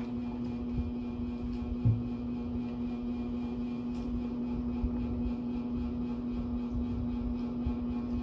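Steady electrical hum from a running appliance, over a low rumble, with a few soft clicks and a light knock about two seconds in from food being handled and eaten by hand.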